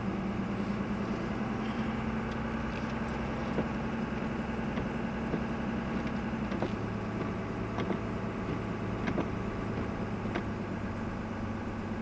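Pickup truck's engine and road noise heard from inside the cab while driving: a steady low drone whose note drops about halfway through, with a few faint ticks.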